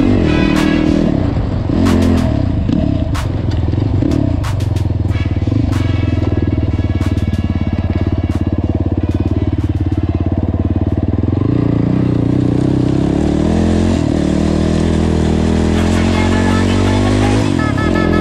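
ATV engine running under way over a rough dirt field track, its pitch rising about twelve seconds in, with background music mixed in, which grows louder near the end.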